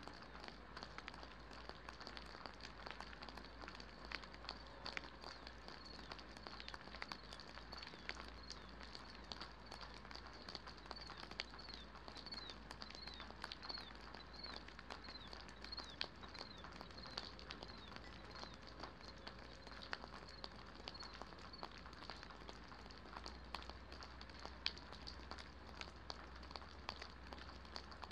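Faint rain pattering on a concrete pad, with scattered individual drop ticks. Through the middle a bird repeats short, high, falling chirps.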